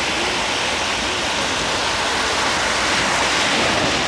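Small waves breaking and washing up on a sandy shore: a steady rush of surf.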